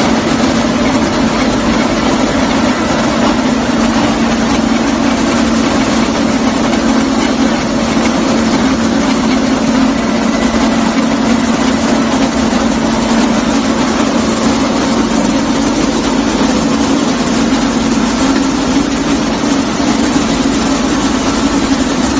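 Small rice milling plant running at full operation: several milling machines driving together in a loud, steady drone with a strong low hum and a dense hiss of moving grain and air.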